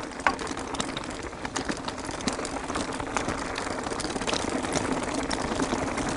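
Mountain bike rolling down a loose, rocky shale trail: tyres crunching over stones with a steady rush and many small clicks and rattles of gravel and bike parts.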